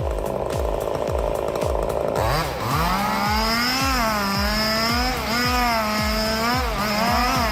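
A chainsaw cross-cutting a log, its engine pitch dipping and rising under load, over background music with a steady kick-drum beat about twice a second.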